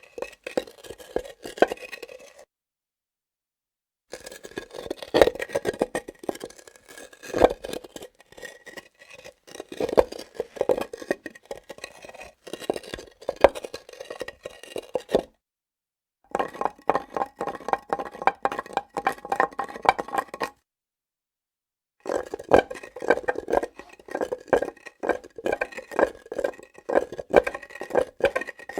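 Hard objects clinking, rattling and scraping on a granite slab, with dense rapid taps and a ringing note. The sound comes in several takes, each ending in a sudden silence of a second or two.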